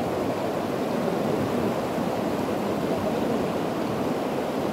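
River water rushing steadily past, an even unbroken noise.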